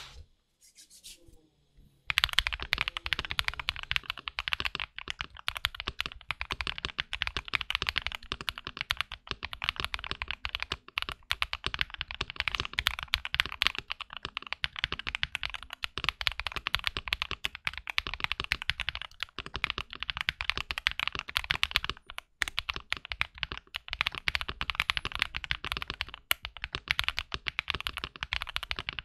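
Fast, continuous typing on a mechanical keyboard fitted with lubed AKKO V3 Cream Yellow linear switches in an Origin 65A keyboard. The typing starts about two seconds in.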